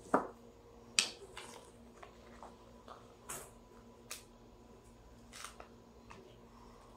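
Several light clicks and taps, roughly one a second, from small plastic craft paint pots and a painted cup being handled on a table, with a faint steady hum beneath.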